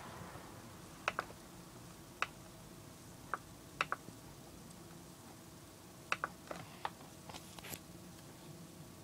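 Computer mouse clicking: about a dozen short sharp clicks, several in quick pairs, over a faint steady hum.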